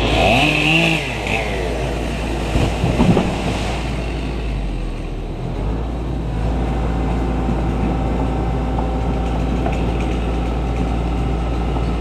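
A chainsaw runs at the base of a tree for the first few seconds, with a few sharp cracks about three seconds in as the trunk gives way and falls. After that a tracked excavator's diesel engine runs steadily.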